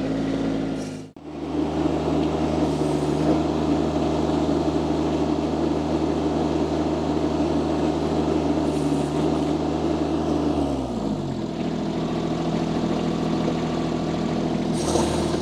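Mini skid steer loader's diesel engine running steadily at high revs, with a brief break about a second in; about ten seconds in it is throttled down and the pitch falls to a lower steady run.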